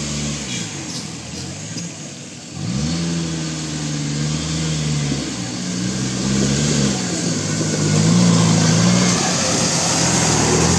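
Mahindra Thar 4x4 engine revving under off-road load. Its pitch falls away about half a second in, surges back up sharply at about two and a half seconds, then holds and wavers as the throttle is worked. The sound grows louder toward the end, with a rising hiss.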